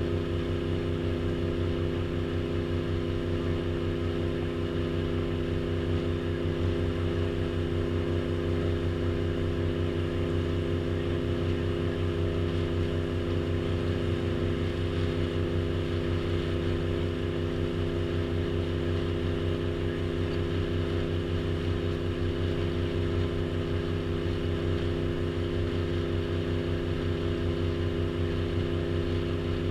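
Tour boat's engine running steadily, a constant low hum at an even pitch with no change in speed.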